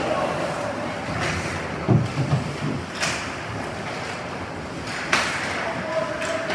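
Ice hockey play close by: a steady scraping wash of skates on the ice. Sharp clacks of sticks and puck come about 3 and 5 seconds in, with a few duller thumps around 2 seconds in.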